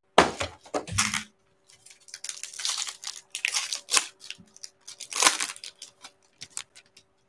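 Foil wrapper of a Panini Absolute Football trading-card pack crinkling and tearing as it is ripped open by hand, in irregular crackly bursts, loudest at the start and again about five seconds in.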